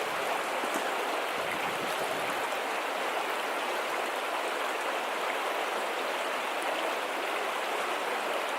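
Creek water running steadily: a constant, even rush.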